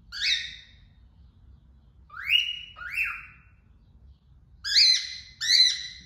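Female lutino cockatiel giving five loud, upward-sweeping whistled calls: one near the start, two around the middle and two close together near the end.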